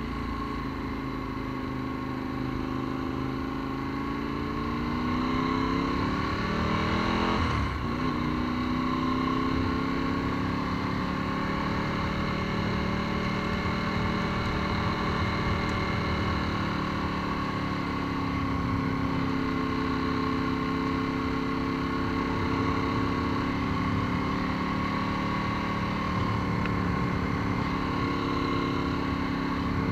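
Ducati 748's V-twin engine pulling as the motorcycle accelerates: the pitch climbs for several seconds, drops sharply at a gearshift about seven and a half seconds in, then holds a steadier cruise that rises and falls gently.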